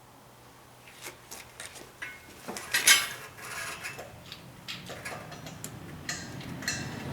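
A run of irregular clinks and knocks from small hard objects being handled, the loudest about three seconds in.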